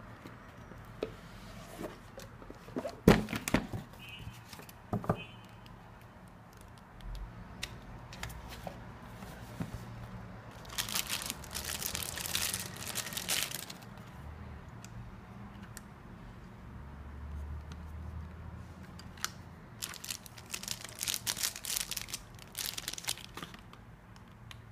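Clear plastic wrapping crinkling and tearing as a packaged vaporizer is unwrapped by hand, in two busy stretches, one near the middle and one near the end. Earlier there are a few sharp knocks from handling the cardboard box.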